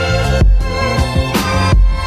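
Background music with a steady beat: low bass-drum thumps and sharp snare-like hits over sustained pitched chords and a melody.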